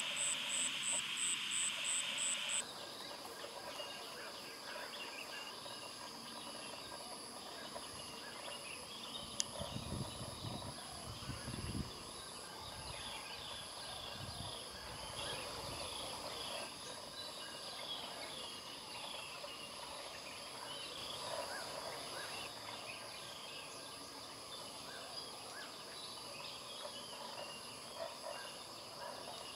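Outdoor nature ambience. For the first two or so seconds insects trill in quick, even pulses over a hiss. Then birds chirp over a steady high-pitched insect drone, with a brief low rumble near the middle.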